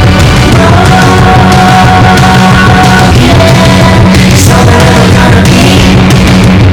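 Loud rock music with distorted guitars, drums and a held vocal or lead line.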